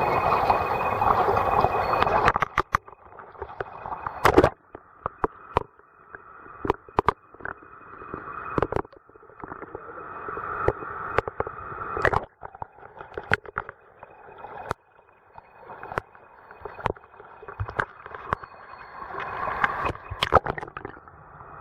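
Stream water rushing, then gurgling and sloshing in muffled swells, with many sharp clicks and knocks scattered through it. The rushing is loud for the first two seconds or so and then drops away suddenly.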